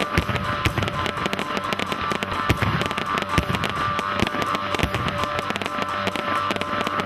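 Fireworks going off in quick succession: a dense, unbroken run of sharp pops and crackles from several aerial bursts breaking at once.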